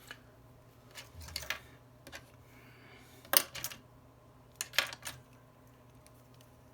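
Small tools and parts being handled on a hard work surface: three short clusters of sharp clicks and taps, the loudest about three seconds in.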